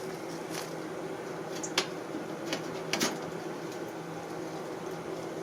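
A steady low mechanical hum, with a few scattered light clicks and knocks from small objects being handled.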